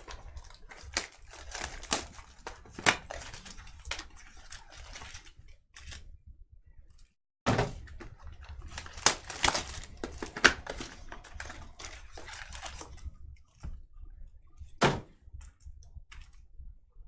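A sealed trading-card hobby box and its packs being opened and handled by hand: tearing wrapper, crinkling, and irregular light clicks and knocks of cardboard and packs. The sound cuts out completely for a moment about seven seconds in.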